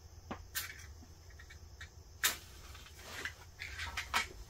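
Matches from a French MRE being struck against their box: several short scratchy strikes, the loudest a little over two seconds in, with a cluster of rasping strikes near the end as one catches.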